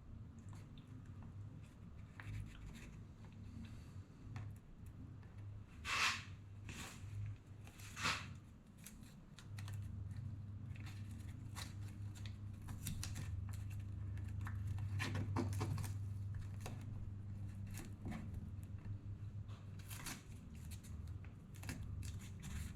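Pieces of tape being peeled, crinkled and pressed onto glued-up wooden panels, giving scattered short crackles and taps. A low steady hum runs underneath, louder through the middle.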